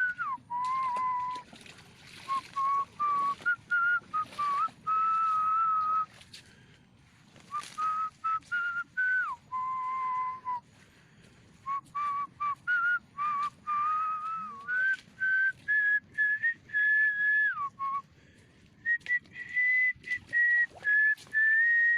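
A series of clear whistled notes, held and stepping up and down in pitch, with short gaps between phrases; the notes climb higher near the end.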